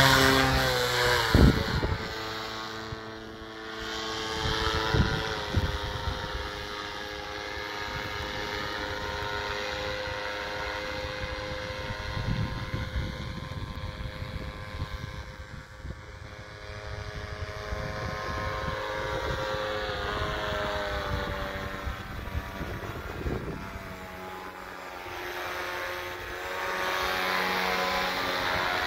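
Radio-controlled paramotor's motor and caged propeller running in flight, at a steady pitch most of the time, sagging about three-quarters of the way through and climbing again near the end. A couple of loud knocks sound in the first few seconds, around the hand launch.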